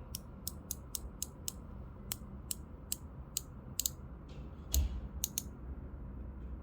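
Star drag of a Kastking Kestrel Elite BFS baitcasting reel turned notch by notch, giving a series of crisp, sharp clicks at a few per second. The clicks stop about five seconds in, as the drag reaches its maximum setting.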